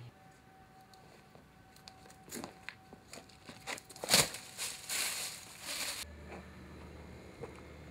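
Twigs and dry leaves crackling and rustling as a person clambers down through shrubs, in irregular snaps with the sharpest crack about four seconds in. After about six seconds, only a steady low outdoor hum.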